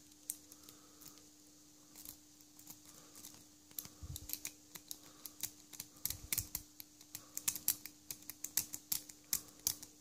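Light, irregular metallic clicks and taps of a lock pick working the pins of a tiny pin-tumbler lock held under a tension tool, sparse at first and coming thicker and faster in the second half.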